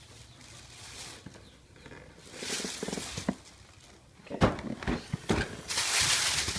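Packaging of a toy being handled and opened: rustling, then a handful of sharp clicks and knocks about four to five seconds in, then a loud burst of rustling or tearing near the end.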